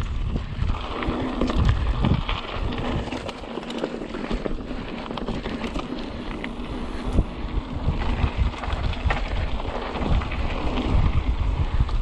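Mountain bike riding a dirt trail: tyre noise and frequent knocks and rattles from the bike over bumps, under heavy wind buffeting on the microphone that eases for a moment a few seconds in.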